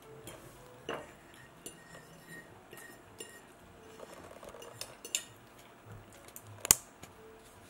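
Metal fork clinking and scraping on a plate while scooping up cake, a series of light taps with one sharp, louder clink near the end.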